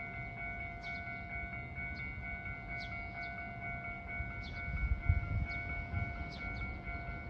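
Steady electronic ringing of a railway warning signal. Short high bird chirps come through about once a second, over a low rumble that swells about five seconds in.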